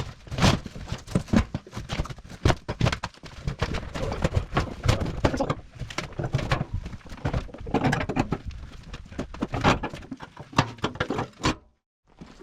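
Irregular knocks, clunks and rattles of metal parts being handled and shifted, one after another with no steady rhythm, cutting off suddenly near the end.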